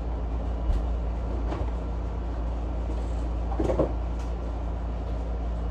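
A few faint knocks and a brief clatter of kitchen items being handled, over a steady low background hum.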